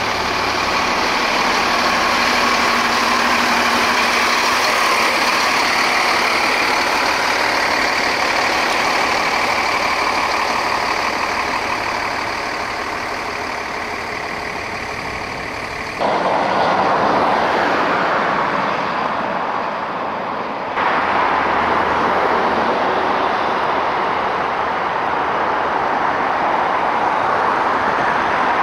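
A fire truck working: a loud, steady noise with no siren, broken twice past the middle by sudden cuts.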